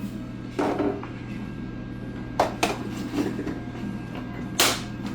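Kitchen handling noise: a few separate knocks and clunks, the loudest about four and a half seconds in, over a steady low hum.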